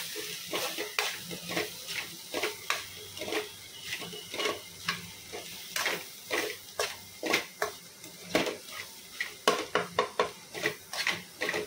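A steel spoon scraping and knocking against a steel kadai in irregular strokes as egg, anchovies and grated coconut are stirred and dry-fried, over a steady sizzle.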